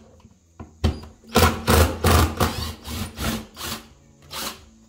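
Cordless impact driver driving a screw through the back panel of a cabinet, run in a string of about eight short trigger bursts, each under half a second.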